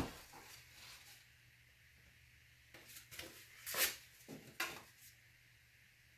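Small handling noises: a sharp click right at the start, then a few brief rustles, the loudest a little before the four-second mark.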